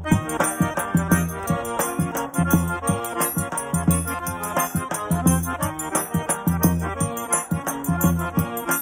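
Background music with a steady beat, bass notes and percussion.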